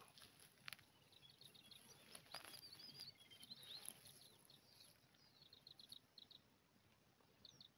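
Faint birdsong: quick series of high chirps and a short warbling phrase, with a couple of soft clicks.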